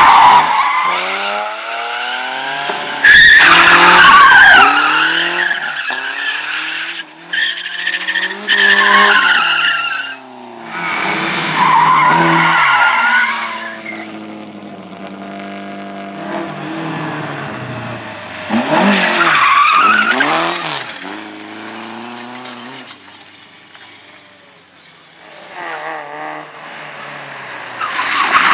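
Rally cars on a slalom course, engines revving hard with pitch rising and falling through gear changes, and tyres squealing and skidding through the turns. A loud burst about three seconds in is the loudest moment.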